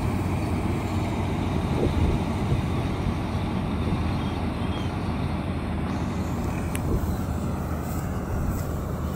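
Vishal 435 combine harvester running steadily while it cuts and threshes standing paddy.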